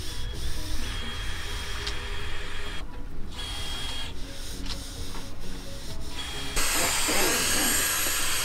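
Rasping strokes of a hand file on metal with short pauses, then about six and a half seconds in a cordless drill starts up and runs with a high whine, drilling holes into the sailboat's mast.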